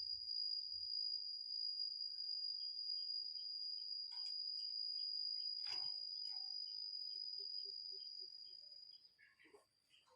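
An insect trilling in one steady high, unbroken tone that fades out about nine seconds in, with faint scattered bird chirps and a brief click about six seconds in.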